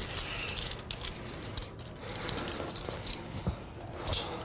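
Handcuffs and police duty gear rattling and clicking in quick, irregular bursts as a man held down on the floor is cuffed.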